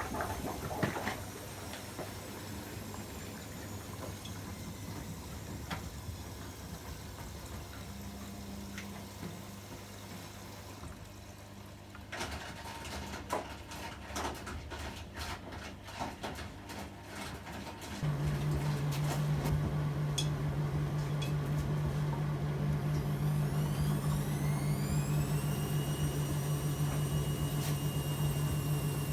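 AEG Öko-Lavamat 73749 front-loading washing machine in its 95 °C boil-wash programme: water sloshing and scattered clicks, then a steady pump-like hum cuts in about two-thirds of the way through. Near the end a motor whine rises in pitch and then holds steady as the drum speeds up toward a spin.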